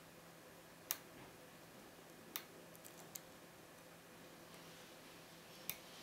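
Faint, sharp metallic clicks of a hook pick working the pin tumblers of a five-pin brass Ifam euro cylinder held under a tension wrench. About half a dozen separate clicks, the loudest about a second in, a small cluster around two and a half to three seconds, and one more near the end.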